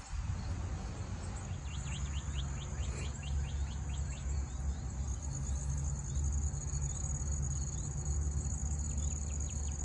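Insects chirping outdoors: a steady high trill that grows louder about halfway through, with a quicker pulsed chirping of several beats a second in the first half and again near the end. A low rumble runs underneath.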